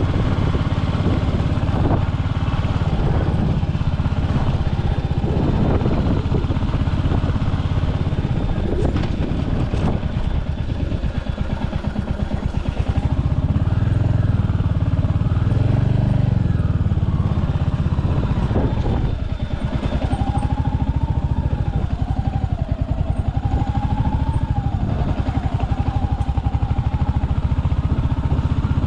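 Royal Enfield Hunter 350's single-cylinder engine running as the motorcycle is ridden, a steady low pulsing that eases off briefly about eleven and again about nineteen seconds in.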